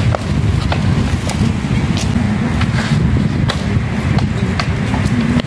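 A steady low outdoor rumble of wind on the microphone and road traffic, with scattered sharp clicks and knocks from a mountain bike being ridden on its back wheel on concrete.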